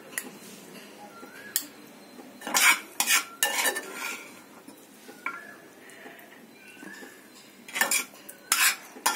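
A metal spoon scrapes cooked carrot halwa out of a metal pan into a glass bowl, knocking against the pan and the bowl. Sharp clinks come in clusters, around three seconds in and again near the end.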